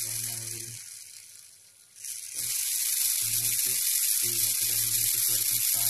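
Small DC gear motors on an Arduino line-follower robot humming in stops and starts, cutting out and back in several times, which the maker puts down to a loose connection. A steady high hiss runs along with it, fading out about a second in and coming back near two seconds.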